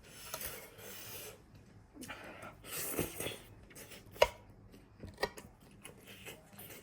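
Close-up eating sounds: chewing and rustling in several noisy bursts. There is a sharp click about four seconds in and a smaller one a second later.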